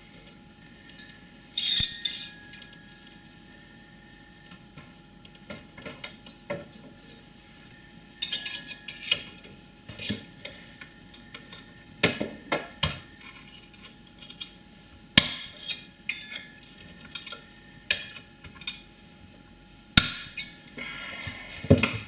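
Scattered metal clicks, clinks and knocks with brief scraping as a finned CPU heatsink is set onto a processor module and screwed down with a screwdriver. The sharpest knocks come about two seconds in and again around twelve, fifteen and twenty seconds in.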